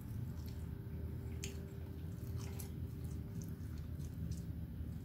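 A person chewing a mouthful of taco with mouth closed, with short clicks now and then, over a steady low hum.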